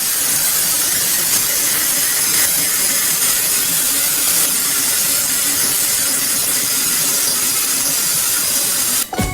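A steady, loud hiss like static or escaping steam, with no tone in it, cutting off suddenly near the end.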